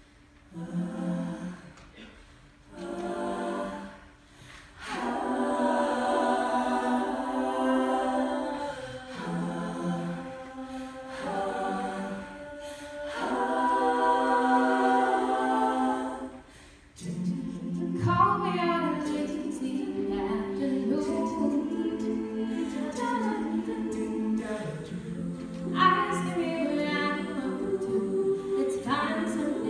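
Women's a cappella group singing without instruments: a few short chords with pauses, then long held chords. About halfway through, a lead voice on a microphone sings a melody over the group's backing chords.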